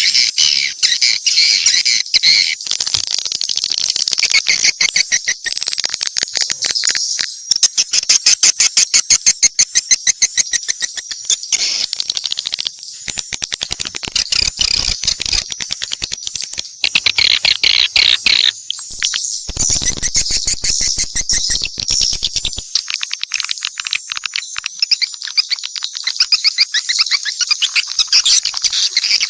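Swiftlet (burung walet) calls from a mixed swiftlet lure track: many birds twittering together in dense, rapid trills of chirps and clicks.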